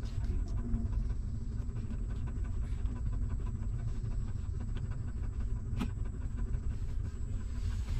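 A dog panting over a steady low rumble while newborn puppies nurse, with one sharp click about six seconds in.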